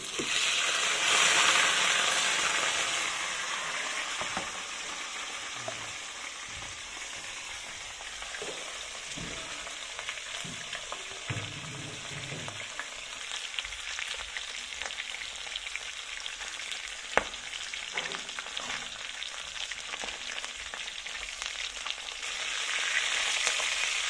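Tilapia pieces frying in hot oil in a pan: a steady sizzle, louder for the first few seconds and again near the end as the pieces are moved about, with a few sharp pops.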